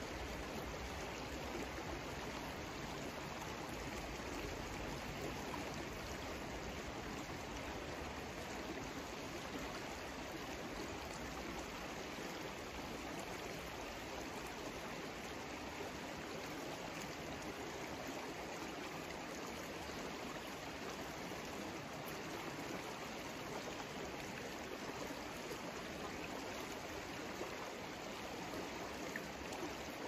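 A stream running steadily, with an even rush of flowing water.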